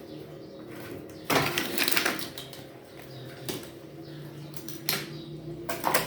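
Clattering and sharp clicks of small hard objects being handled. There is a loud rattle about a second in and a few single clicks later, over a steady low hum.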